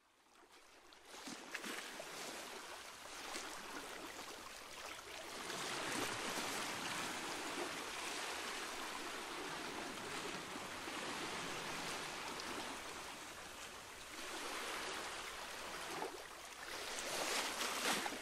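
Rushing water, like a stream or surf, fading in and swelling and easing in slow waves.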